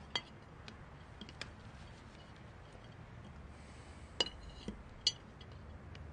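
Cutlery clinking against dinner plates as people eat at the table: a handful of separate light clinks, the clearest about four seconds in and again a second later.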